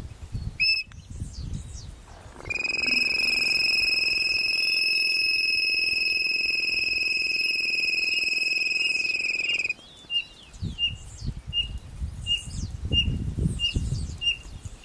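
A long, steady, high whistle is held for about seven seconds on a flute-type quail caller (pio). It is followed by a run of short, evenly spaced high notes, about two a second, from a codorna piriri quail calling back, with low rumbles on the microphone.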